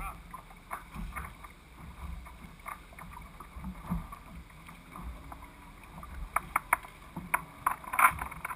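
Choppy water lapping against a floating race boat's hull close to the microphone, with a run of sharper slaps in the last few seconds.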